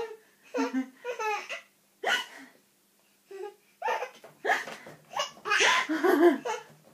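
Young child laughing in a string of short bursts broken by hiccups, with a longer laugh near the end.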